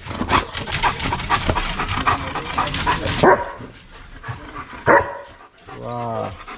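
Dog barking and whining, with short rapid yips early on, two loud sharp barks, and a drawn-out whine near the end.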